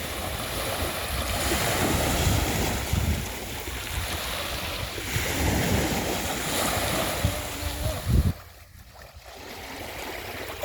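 Sea waves washing in, with wind buffeting the microphone in low gusts. The sound cuts off suddenly about eight seconds in and becomes much quieter.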